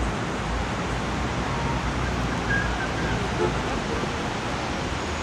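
Steady rush of city street noise, with brief faint voices about two and a half and three and a half seconds in.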